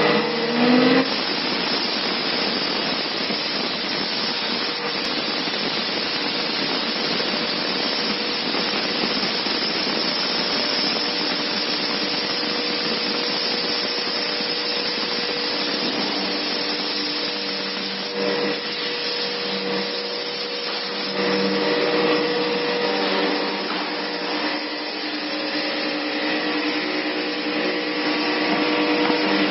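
CNC router spindle cutting a black UHMW polyethylene outrigger pad: a steady, noisy whir with a steady tone running through it, and a second, lower tone joining in during the second half.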